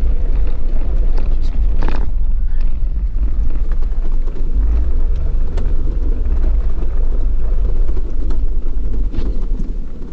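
Vehicle driving on a rough road, heard as a steady low rumble with scattered clicks and knocks, a sharper knock about two seconds in.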